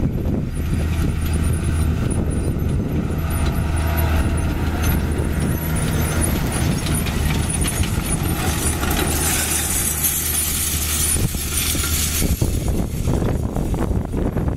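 New Holland T6.130 tractor engine running steadily under load as it pulls a John Deere grain drill. From about 8 seconds in, a loud hiss rises as the drill's disc openers cut through dry soil close by. Near the end the engine fades as the rig moves away.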